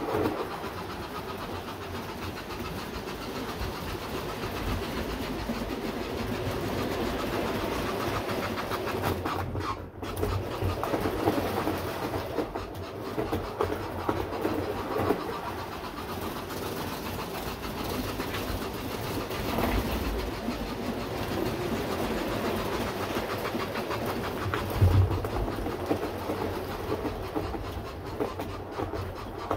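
Bachmann North Pole Special model train running steadily around a loop of track, its wheels clicking over the rails, with a brief thump near the end.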